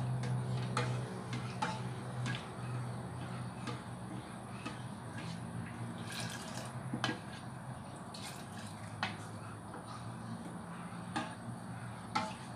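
Ladle stirring a thin coconut-milk agar-agar mixture in a stainless steel saucepan, with a few light knocks of the ladle against the pot. About six seconds in, liquid is poured back into the pot from the lifted ladle.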